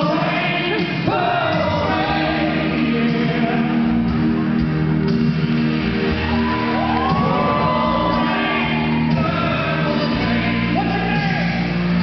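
Live amplified song: a man singing into a handheld microphone in long, sliding held notes over sustained backing chords, echoing in a large hall.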